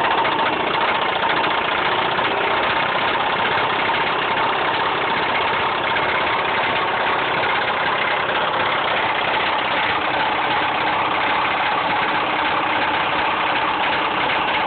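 Mazda 6 engine idling steadily with a heavy knock: rod knock, the sign of a worn connecting-rod bearing.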